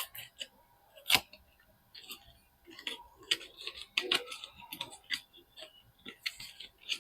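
Soap packaging being unwrapped by hand: crinkling and rustling with a run of sharp clicks and taps, the loudest click about a second in.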